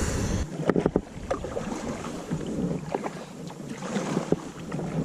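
Kayak paddle strokes on a river: the blades dip and splash, with several sharp, irregular splashes or knocks, the strongest about a second in. A low wind rumble on the microphone cuts off about half a second in.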